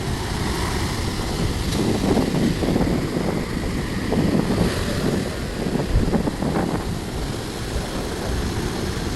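Sea waves washing onto a beach, with wind buffeting the microphone; the wash swells louder between about two and seven seconds in.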